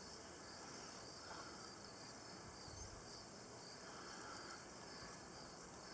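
Crickets chirring faintly at night, a steady high trill over a quiet background hiss.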